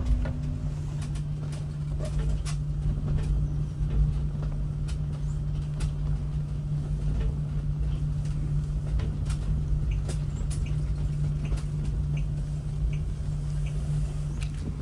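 Cabin sound of a driverless electric self-driving bus on the move: a low road rumble under a steady hum, with scattered clicks and knocks.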